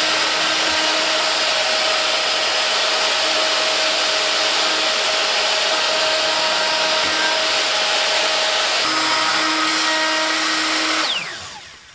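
Makita plunge router running at full speed and cutting oak, a loud steady whine mixed with cutting noise. About eleven seconds in it is switched off and the motor spins down with a falling whine.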